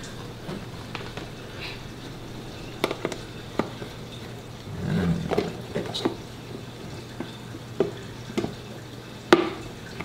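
Clear plastic storage tubs being handled and their lids fitted and pressed shut: a scattered series of sharp plastic clicks and knocks, the loudest one near the end.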